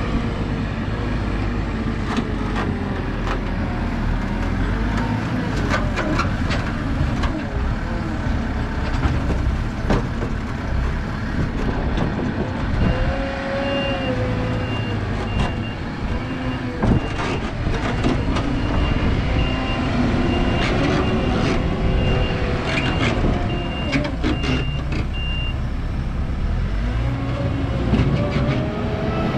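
A Claas telehandler's diesel engine runs and revs as it loads horse manure into a manure spreader, with knocks as the bucket works and manure drops. Through the middle a reversing alarm beeps evenly for about twelve seconds.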